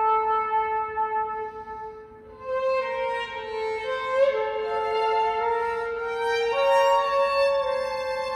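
Violin and flute playing a slow melody in duet. A held note fades out about two seconds in, and after a brief lull both instruments come back in with a new phrase of slowly stepping notes.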